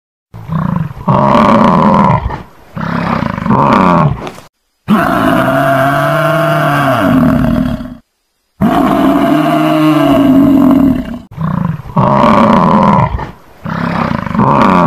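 Buffalo bellowing: a string of loud, low calls a second or two each, with two longer drawn-out bellows of about three seconds in the middle. The calls are separated by brief gaps of dead silence.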